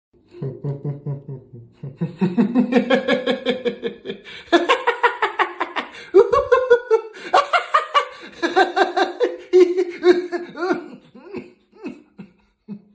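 Laughter sound effects: people laughing in quick repeated ha-ha pulses, the voice and pitch changing every few seconds from low belly laughs to higher ones.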